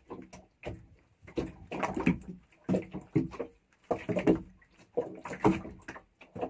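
Water sloshing and slapping against a small boat's hull in irregular bursts.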